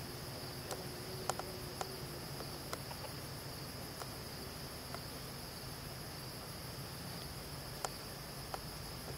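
Steady high-pitched chorus of crickets, with a few faint clicks scattered through it.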